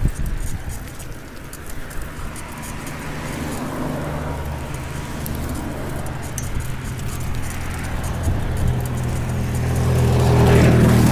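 Road traffic: a motor vehicle's engine runs with a steady low hum and grows louder over the last few seconds as it approaches.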